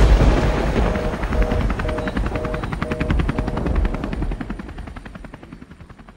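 Logo sting: a deep boom, then a fast, even, rotor-like chopping with short repeated tones over it, fading away over the last two seconds.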